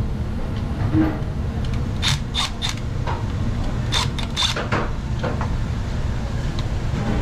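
Small sharp metallic clicks and taps of hand work on an electrical switch being replaced, in two short clusters about two and four seconds in, over a steady low rumble.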